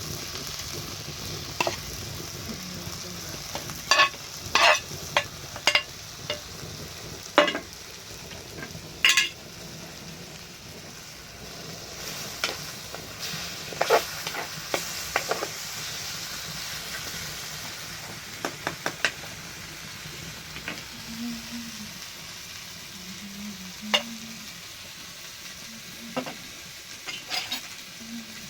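Food sizzling and frying in a pan, with a cooking utensil knocking and scraping against it now and then as the food is stirred.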